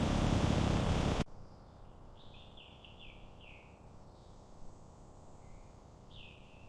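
A loud rushing noise cuts off suddenly about a second in, leaving a quiet outdoor background. A bird then chirps a quick run of five or six short falling notes, and gives one more call near the end.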